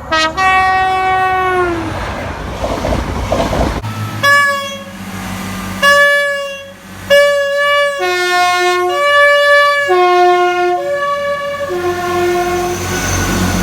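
Train air horns: one held horn note that sags in pitch as it dies away, then the rushing noise of a passing train. About four seconds in, a train horn sounds a run of long blasts, switching back and forth between a lower and a higher tone.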